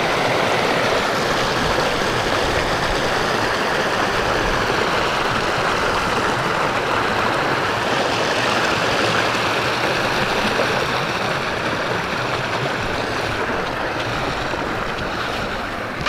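Shallow mountain trout stream rushing steadily over rocks and riffles.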